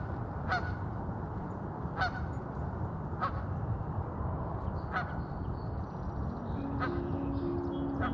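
Geese honking, single short calls about every second and a half, over a low steady rumble. Soft background music comes in near the end.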